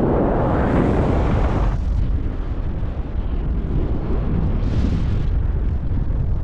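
Wind rushing over a GoPro action camera's microphone as a paraglider flies: a heavy, low buffeting rumble, stronger in the first couple of seconds and again briefly about five seconds in.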